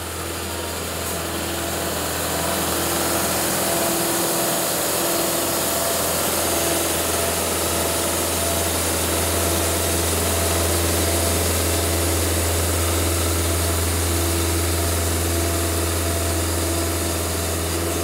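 Cook's AC36 hydraulic portable bandsaw mill running steadily as its band blade cuts through a log on the forward pass. The hum grows a little louder over the first few seconds, then holds even.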